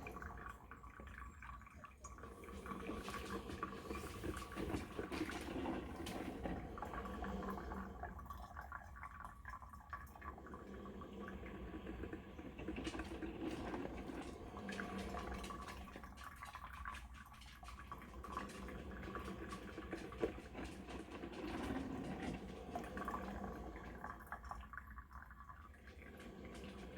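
Cuisinart 2-in-1 coffee maker brewing a carafe: water gurgling and dripping through, swelling and easing off about every eight seconds.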